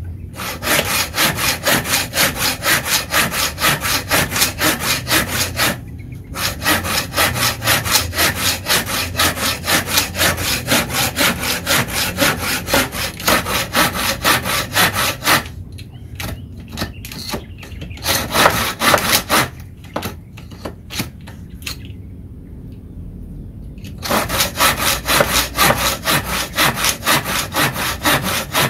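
Tekiro folding saw cutting through a clamped wooden block with quick back-and-forth strokes, about three a second, each stroke a rasp of teeth through wood. The sawing stops briefly about six seconds in and goes in short fits with pauses from about fifteen to twenty-four seconds in, then runs steadily again.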